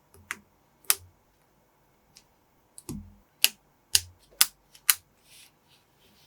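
Plastic building-block pieces clicking and snapping together by hand, about seven sharp, irregular clicks, with a brief soft rustle near the end.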